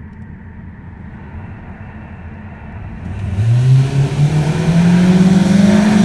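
Car engine heard from inside the cabin: a dull, steady low rumble for about three seconds, then the engine accelerating, its pitch rising steadily and getting much louder.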